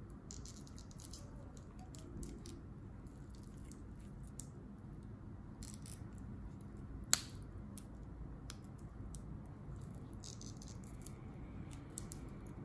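Faint clinks and ticks of a stainless steel watch bracelet and its deployant clasp being handled, with one sharp metallic click about seven seconds in as the clasp snaps shut.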